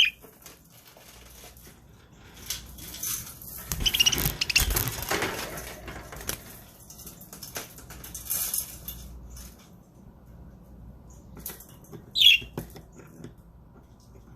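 Budgerigars flapping their wings in a flurry for a few seconds, with a short, sharp budgie chirp near the end.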